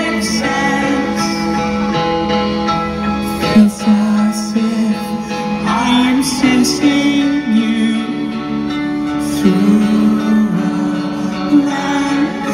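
Live rock band playing a slow song: guitars holding sustained chords under a sung melody, with a few sharp drum or cymbal hits.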